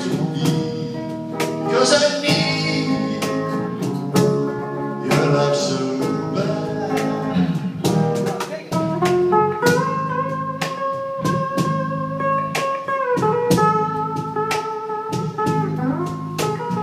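A live band playing a slow blues number, with guitar over drums and bass. A long held note sustains for a few seconds in the middle.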